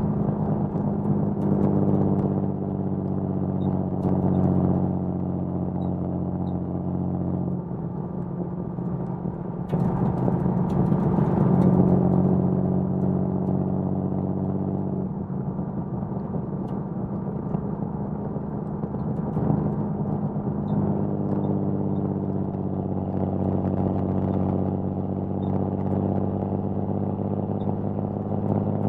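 A 1979 Datsun 280ZX's L28 inline-six, on triple Weber carburettors and an HKS Hi-Power exhaust behind a 6-2-1 header, running while the car drives along at a steady pace. About ten seconds in the exhaust note swells louder for a couple of seconds under more throttle, then settles back, shifting a few more times.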